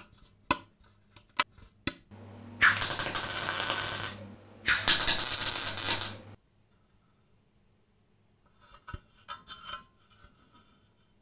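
MIG welding arc crackling and hissing in two bursts of about a second and a half each, with a low hum under them, as a patch is welded into a sheet-metal scooter footboard. Before the welds there are a few light metal clicks, and near the end soft handling rubs and clicks of the metal part.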